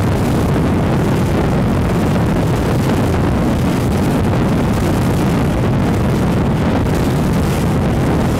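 Loud, steady rush of wind buffeting the microphone, mixed with engine and water noise, aboard a boat running at high speed over open water.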